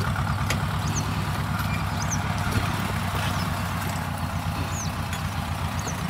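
Engine of a small vehicle running steadily with a low, even beat as it tows a load of cut birch poles through grass. A few faint short high chirps sound over it.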